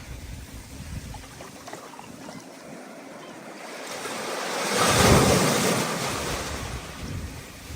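Ocean surf: a steady rush of sea, with a wave that builds, breaks loudest about five seconds in, and then washes out.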